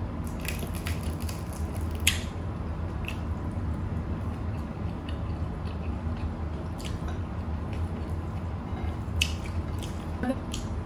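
Close-miked mukbang eating sounds: chewing with scattered wet mouth smacks and clicks, the sharpest about two seconds in and again near nine seconds, as rice and fried fish are eaten by hand. A steady low hum runs underneath.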